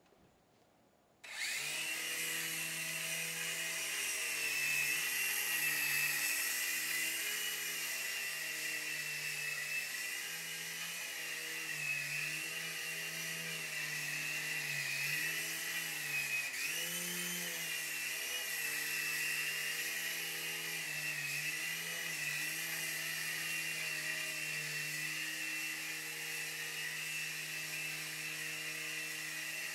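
Night Hunter micro RC helicopter's small electric motors and two rotors spinning up suddenly about a second in, then whirring steadily with a whine whose pitch wavers up and down as the throttle changes.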